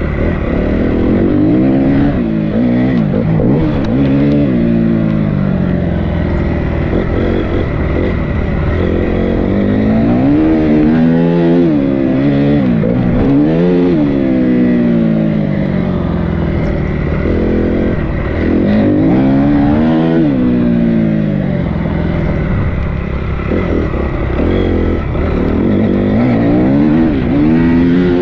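Dirt bike engine heard from on board while riding, its pitch rising as the throttle opens and dropping back again and again as the rider accelerates, shifts and rolls off.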